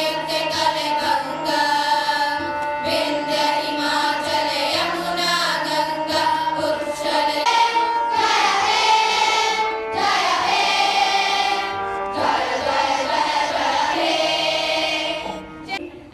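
A group of schoolgirls singing together through microphones, in long held notes, in a choir-like prayer song; the singing ends just before the end.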